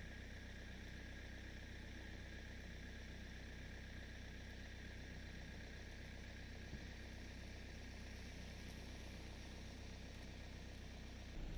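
Steady low hum of an idling engine under an even hiss.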